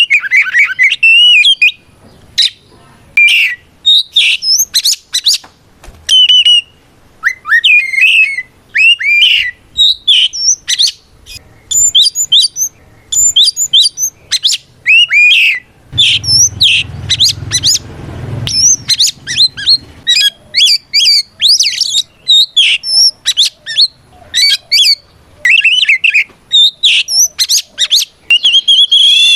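Oriental magpie-robin (kacer) in loud, open 'ngeplong' song: varied whistled phrases and rapid sweeping notes, delivered in bursts with short pauses. This is the rival-challenging fighting song, used to provoke other males into answering.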